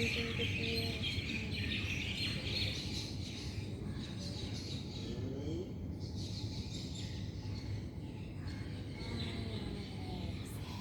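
Small birds chirping continuously over a steady low background rumble, the chirping thinning out in the middle and picking up again near the end.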